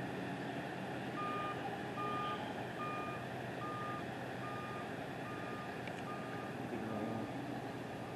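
Truck's reversing alarm beeping at an even pace, about one beep every 0.8 seconds, starting about a second in, over steady traffic and engine noise.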